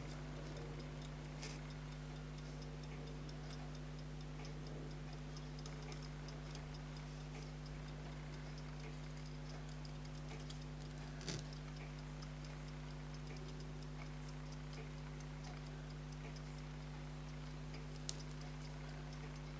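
Vintage fusee pocket watch ticking faintly and steadily over a steady low hum, with a few small sharp clicks of parts or tools being handled, the loudest about eleven seconds in.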